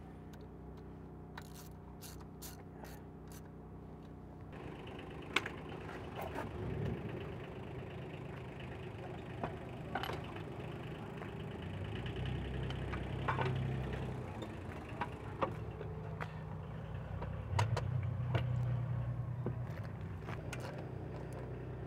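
Hand wrench tightening the bolts of an outboard lower unit's water pump housing, a handful of sharp clicks, then scattered metal clicks and knocks as the lower unit is lifted and fitted back onto the outboard. Under it all runs a low hum and a low rumble that swells twice.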